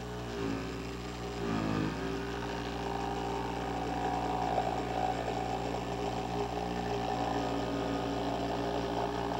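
Electric saber saw (jigsaw) running steadily as it cuts through plywood along a marked line, its motor pitch dipping briefly twice in the first two seconds.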